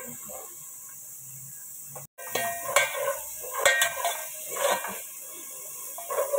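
Chopped onion and garlic sizzling in oil, with a stainless slotted spoon scraping and clinking against a granite-coated pot as it stirs from about two seconds in.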